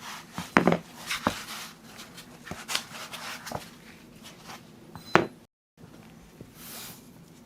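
Hands handling PC build parts on a work surface: a run of light clicks, taps and rustles, with a sharper knock just after five seconds.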